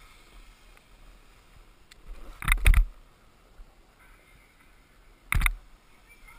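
Snowboard sliding over groomed corduroy snow: a low steady rush with two loud, short scrapes, about two and a half seconds in and again past five seconds.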